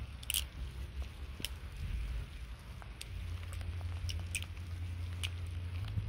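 Falcon balisong (butterfly knife) being flipped: its handles and blade clack together in sharp, irregular clicks, several of them, over a steady low rumble.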